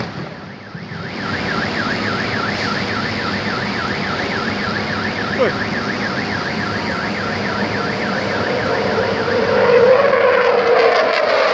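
Emergency alarm siren warbling, rising and falling in pitch about four times a second. Near the end a low-flying jet aircraft's engine noise swells over it.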